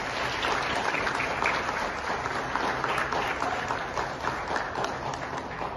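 Audience applauding: a steady round of clapping from many hands that tapers off near the end.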